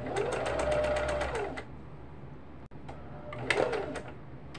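Kenmore electric sewing machine stitching in short runs on the foot pedal. The motor whines up, holds a steady pitch under fast, even needle clatter for about a second and a half, then winds down. A second, shorter burst comes near the end.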